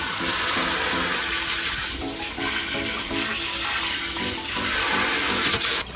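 Water from a garden hose gushing and splashing into an empty glass aquarium tank, a loud steady rush that cuts off suddenly near the end, over background music.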